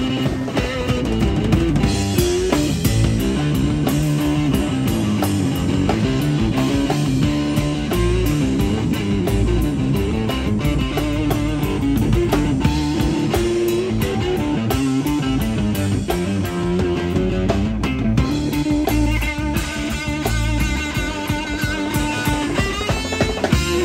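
Live rock band playing an instrumental passage: an electric guitar melody over bass guitar and a drum kit, with no singing.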